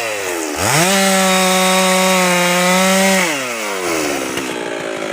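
Husqvarna 390XP two-stroke chainsaw revving quickly to full throttle about half a second in, holding steady there for about two and a half seconds, then winding back down to idle.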